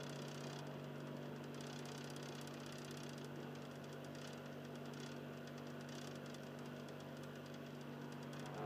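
Philips DVD drive in an Xbox 360 slim, its motor running with a soft, low-toned grinding over a steady hum while the console is in standby mode.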